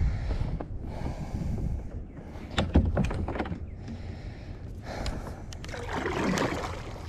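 Kayak paddle being handled: a few sharp clacks of the paddle shaft knocking on the plastic kayak about two and a half to three and a half seconds in, then the blade swishing through the water in a stroke near the end.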